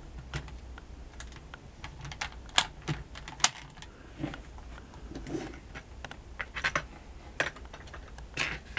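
Irregular small clicks and taps of the hard plastic Kenner M.A.S.K. Firecracker toy pickup being handled. A couple of sharper clicks come about two and a half and three and a half seconds in, and a cluster comes near the end.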